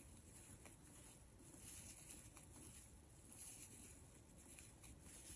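Near silence, with faint soft rustles and small ticks of yarn being worked on a crochet hook.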